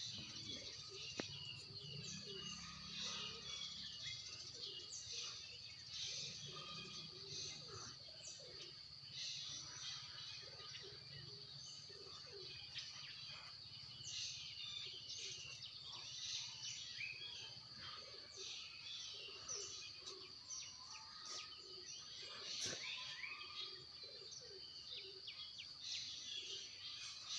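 Faint outdoor ambience: birds chirping on and off over a steady high-pitched drone and a low hum.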